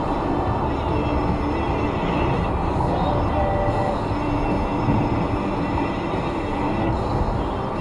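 Steady road and tyre rumble inside a car cruising at highway speed, with faint music underneath.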